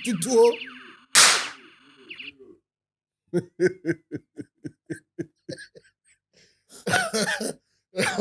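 A toy gun going off once with a sharp bang about a second in, then a person laughing in a run of short, even pulses, about four a second.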